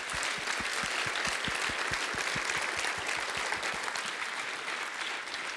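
Audience applauding: a dense patter of many hands clapping. A few nearby claps stand out at about five a second, and the applause eases off slightly toward the end.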